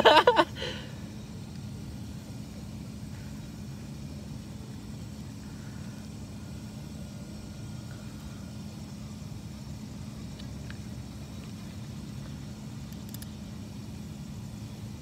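Steady low hum with a faint constant tone under it, the drone of distant machinery, with a couple of faint small clicks.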